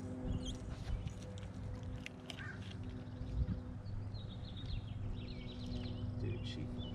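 Songbirds chirping over a steady low hum, with a few light clicks and knocks.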